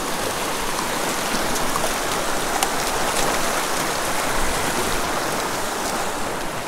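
Shallow mountain creek rushing over rocks in a riffle: a steady wash of running water, with a few faint, sharp splashes.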